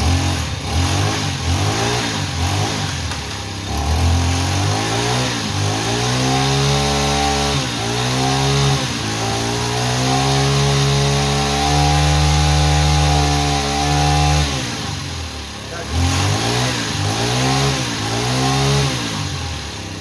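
Stihl 070 chainsaw's two-stroke engine running after a piston assembly replacement, revved up and down repeatedly. Midway it holds a long high rev, then drops back and is blipped up several more times near the end.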